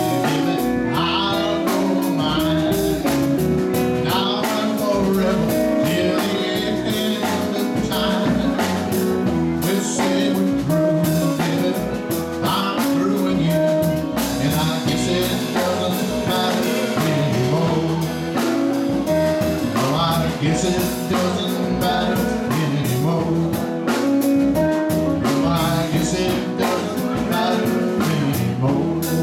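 Live band playing a blues number on electric guitars, keyboard and drums, with a steady beat.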